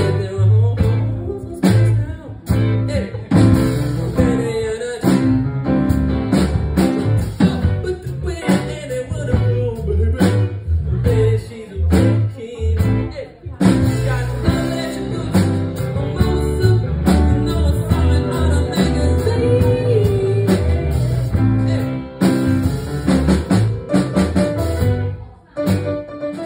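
Live upright piano with a man singing over it, a full, loud pop-style performance. The music dips briefly near the end.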